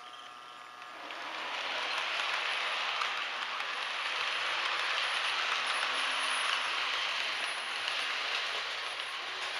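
Model trains running on a layout's track: a steady rattling hiss of small wheels on rail and motors, swelling about a second in as the trains come close.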